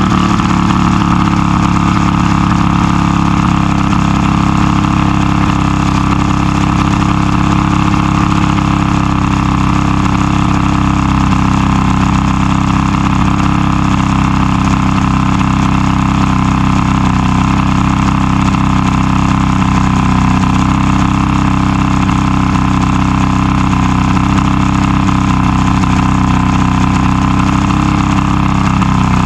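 Outboard motor of a 1989 Bass Tracker idling steadily. It is running again after a new trigger cured its crank-but-won't-start fault.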